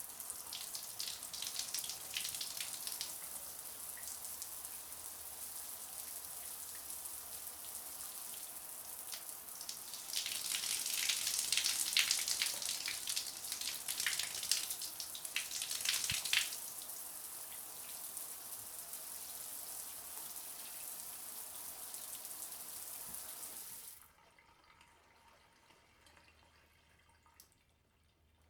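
Shower spray running as a steady hiss of falling water. It spatters harder for several seconds midway, then cuts off suddenly as the shower is turned off, leaving only faint room sound and a single small tick.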